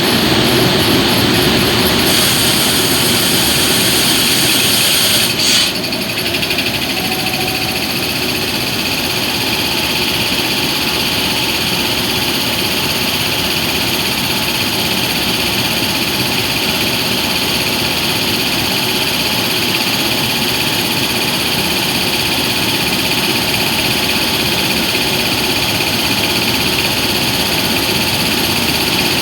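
WAG-9 three-phase electric freight locomotive giving off a steady hum with several whining tones from its cooling blowers and power electronics. A brief click comes about five and a half seconds in, and the sound drops slightly after it.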